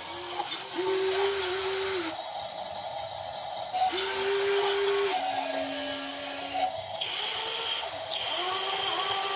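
Small electric motors of a metal RC construction model whining in stretches of a second or so. The pitch dips and rises as the motors take up load, over a steady hiss.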